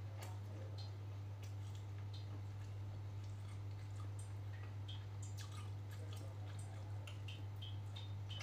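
Steady low hum under small scattered clicks of a metal spoon against a glass bowl, with soft chewing, the clicks coming more often in the second half.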